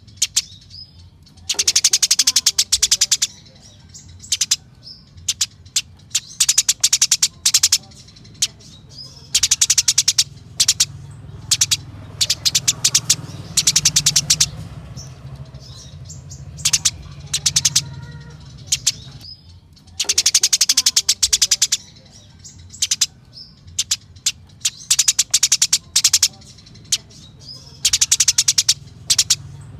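Eurasian tree sparrows giving their agitated fighting chatter: bursts of very rapid, rolling chirps, each lasting a second or two, repeated again and again with short pauses between, over a steady low hum.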